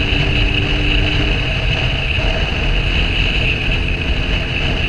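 Steady wind and road noise from riding, with heavy low buffeting and a constant hiss. A faint pitched hum fades out about a second and a half in.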